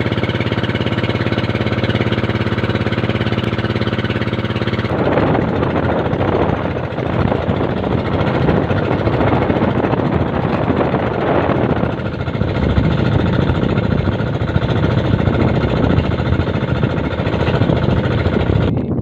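Outrigger boat's engine running steadily under way. About five seconds in the sound turns rougher and noisier, with wind gusting on the microphone over the engine.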